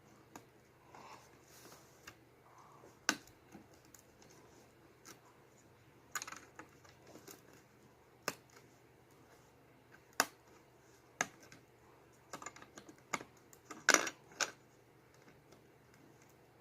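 Plastic Lego bricks clicking as they are handled and pressed together, a string of sharp irregular clicks that come closer together about twelve seconds in.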